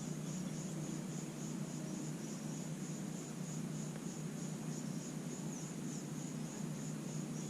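Insects chirping in a steady, high pulsing trill about three times a second, over a steady low hum.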